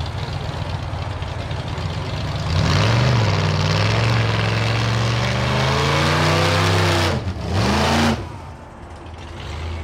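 Drag car doing a burnout: engine idling, then revved hard about two and a half seconds in and held at high revs over the hiss of spinning tyres. It dips briefly, revs once more, and cuts back to idle just after eight seconds.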